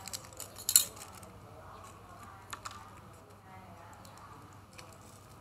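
A few short, sharp clicks and taps from a thin clear plastic tray and a folded paper seed packet handled by fingers. A cluster comes in the first second, the loudest just before one second in, then two more about two and a half seconds in and a single faint one near the end.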